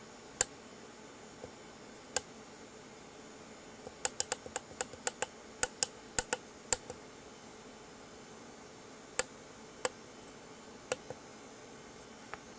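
Sharp, small clicks at an uneven pace: a few single clicks, then a fast irregular run of about a dozen around the middle, then a few more singles.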